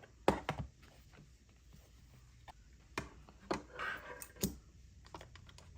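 A pen box and its packaging being handled and opened: a few sharp clicks and taps, with a brief rustle near the middle.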